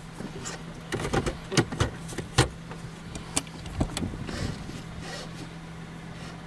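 Suzuki Grand Vitara SUV's engine running steadily at low revs as it crawls down a steep rocky track, with a series of sharp cracks and crunches of stones under the tyres over the first four seconds or so.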